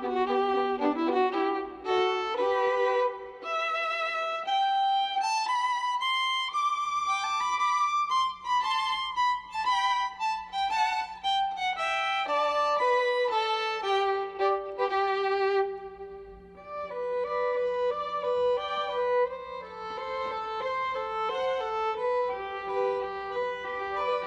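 Background music: a violin playing a slow melody of held notes with vibrato.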